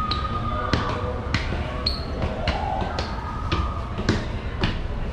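Footsteps of hard-soled shoes on a hard floor at an even walking pace, a little under two steps a second.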